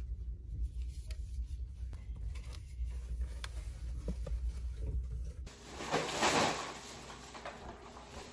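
Faint clicks and handling noise from drink cans and bottles being picked up off a store shelf, over a low steady hum. About five and a half seconds in the sound changes abruptly, and a plastic shopping bag rustles loudly for about a second.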